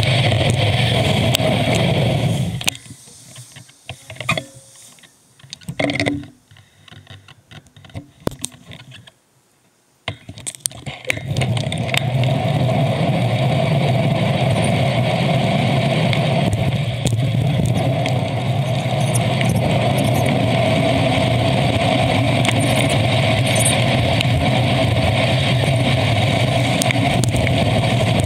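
Steady wind and road noise on a bicycle-mounted camera while riding. It falls away sharply a couple of seconds in, leaving scattered clicks and a short near-silent gap, then returns at full level about eleven seconds in.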